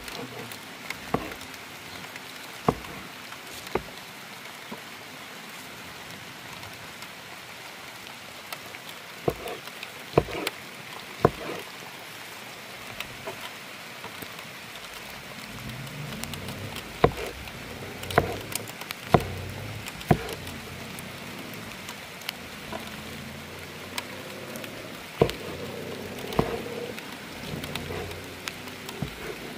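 Steady rain hiss with about a dozen sharp knocks at irregular intervals, several of them clustered in the second half.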